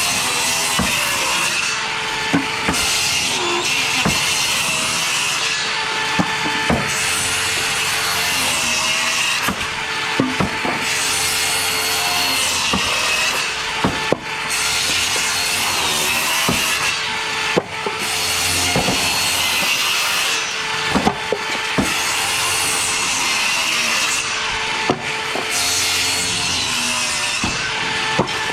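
Power saw cutting through wooden floor joists. It runs steadily, the noise swelling and dropping every few seconds as cuts go through, with scattered sharp knocks between them.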